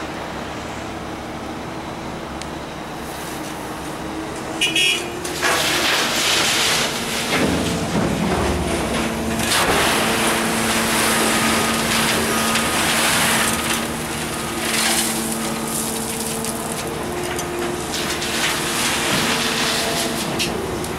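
Hydraulic excavator's diesel engine running under load as its bucket digs gravel out of a steel open-top gondola railcar, the rock scraping and rattling against the bucket and the car. The digging noise gets louder from about five seconds in.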